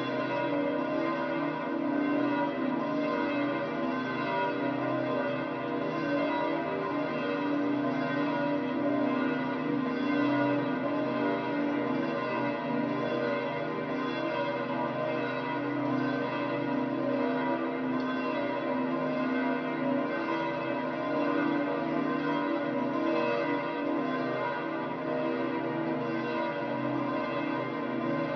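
Church bells of St. Peter's Basilica pealing together, many bell tones overlapping in a continuous, even ringing.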